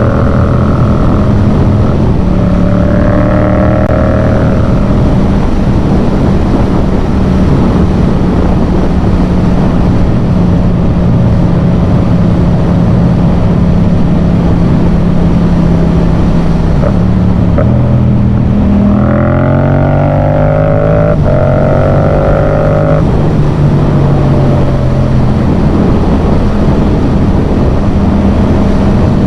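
Yamaha MT-07's 689 cc parallel-twin running through a Yoshimura full exhaust, cruising at a steady engine speed. The revs rise briefly about two seconds in. From about seventeen seconds in it accelerates again, the pitch climbing and breaking at each upshift through a couple of gears, then settles back to a steady cruise.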